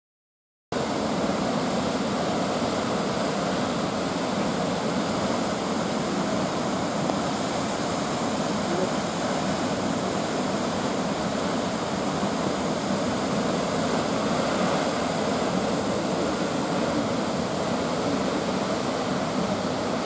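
The Krimml Waterfalls, a large alpine waterfall of the Krimmler Ache, rushing steadily: the constant noise of a heavy volume of falling and crashing water. It starts abruptly just under a second in and holds an even level.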